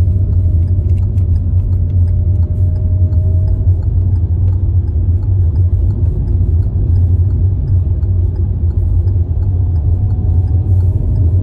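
Steady low rumble inside the cabin of a Hyundai i20 on the move: engine and tyre road noise, with a faint tone that drifts slowly in pitch.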